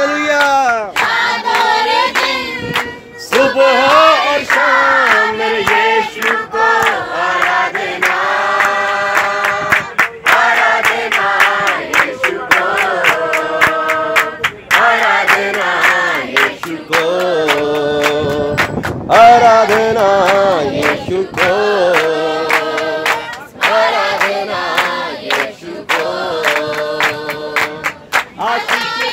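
A group of young people singing a song together, with rhythmic hand-clapping in time to it.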